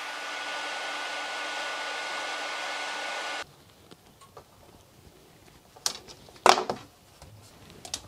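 Handheld hot-air plastic welding gun blowing, a steady hiss with a faint hum, as it heats polyethylene and filler rod for welding; it cuts off suddenly after about three and a half seconds. A few sharp clicks follow near the end.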